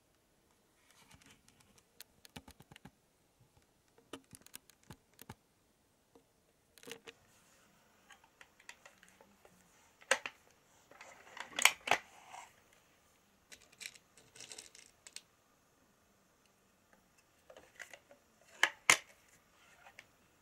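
Handling sounds from a 1971 Diana 35 spring-powered air rifle: scattered clicks and sharp metallic clacks, the loudest about ten, twelve and nineteen seconds in.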